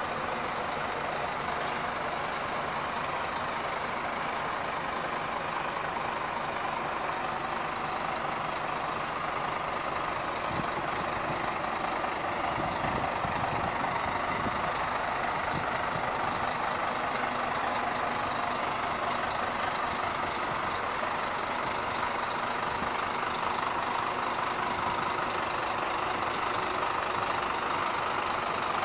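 Scania P230 truck's five-cylinder diesel engine idling steadily, getting a little louder near the end.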